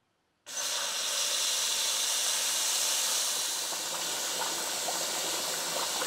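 Kitchen tap running at full flow into a plastic bucket, a steady hiss that starts about half a second in: the tap's unrestricted flow of about 13.5 litres a minute, with no flow reduction washer fitted.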